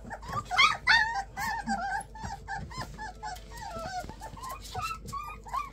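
A litter of three-to-four-week-old puppies whining and yipping: many short, high-pitched squeaks that overlap, several a second.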